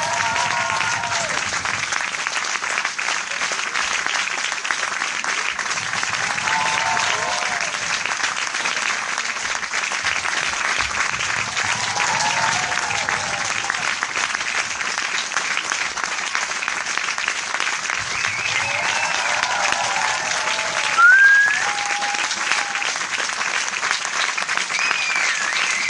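Large crowd applauding steadily, with voices calling out now and then over the clapping and a brief, loud rising call about 21 seconds in.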